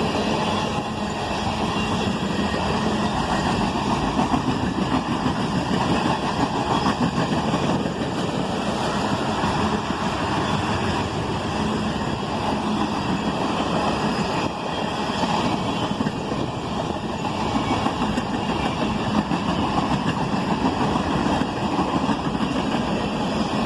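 Freight cars of a CSX manifest train rolling past, a steady rumble and clatter of steel wheels on rail.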